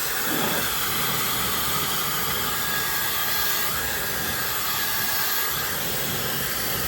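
HRYCF high-speed hair dryer blowing steadily on its cold-air setting: an even rush of air at constant strength.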